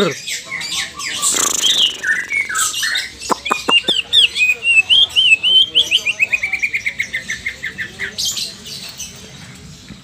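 Green leafbird (cucak ijo) singing: varied chirps and whistles, then a long fast run of repeated notes that slowly drops in pitch, the rattling 'ngetrok' style the bird is being trained in.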